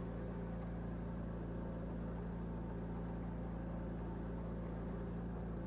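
Engine of a small tracked robotic ground vehicle running steadily as it drives along a dirt track: an even low hum with no change in pitch.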